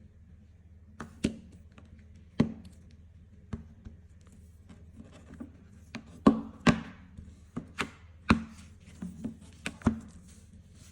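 Irregular sharp taps and clicks of hard objects being handled, about a dozen in all, coming thicker and louder in the second half, over a low steady hum.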